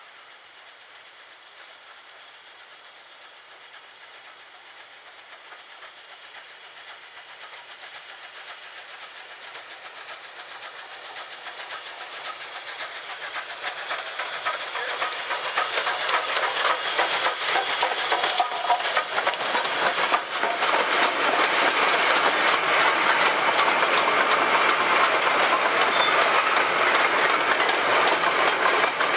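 Steam-hauled goods train approaching, getting steadily louder over about fifteen seconds. Then a long rake of goods wagons rumbles and clatters past over the rail joints.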